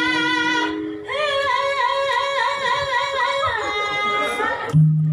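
A female Javanese singer (sinden) singing solo into a microphone through the stage sound system. She holds long notes with a wide vibrato and breaks off briefly just before a second in.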